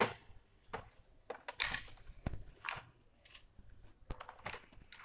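Scattered clicks, knocks and short scraping rustles of hands handling laptop parts, with a hard drive in its bracket being fitted to the open underside of the laptop.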